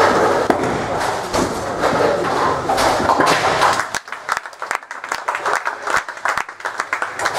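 Bowling ball rumbling down a wooden lane and into the pins. From about four seconds in, a few people clap scattered hand claps.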